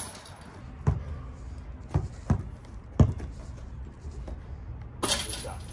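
A basketball thudding on a hard outdoor court: four separate bounces spread over about two seconds, the loudest about three seconds in.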